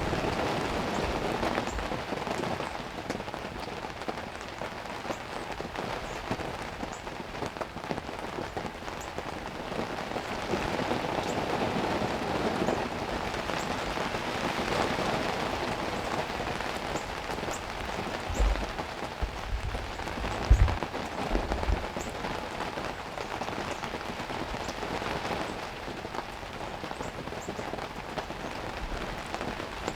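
Heavy rain pouring down steadily, with a few short low thumps about two-thirds of the way through.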